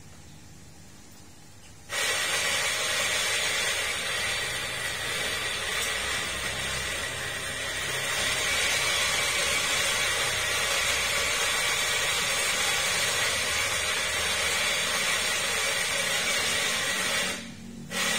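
Coffee grinder running steadily, grinding beans into a portafilter. It starts about two seconds in and cuts off near the end.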